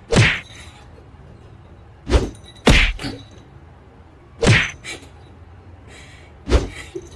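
A cat thumping a wooden door with its paws: five dull knocks at uneven intervals, two of them close together about two and a half seconds in.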